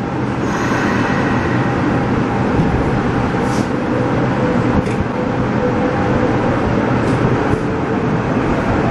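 Subway train pulling out of a station into the tunnel, heard from the cab: a steady running rumble of wheels on rail, with a faint held tone in the middle and a few sharp clicks.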